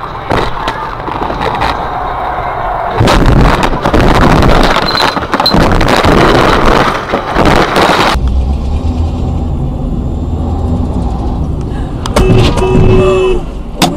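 A car crash as heard from the dashcam inside the crashing car: after steady driving noise, from about three seconds in comes a loud stretch of impacts and crashing noise lasting about five seconds. This cuts off abruptly to the steady low drone of another car driving.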